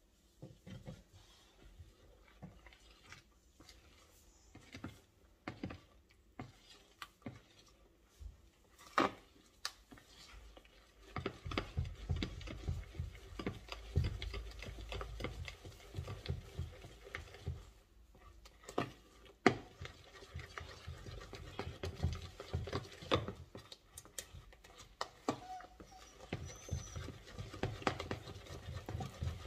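A fork stirring and beating cake batter in a plastic mixing bowl, with irregular clicks and scrapes against the bowl as the melted butter is worked in. The stirring gets faster and louder about eleven seconds in.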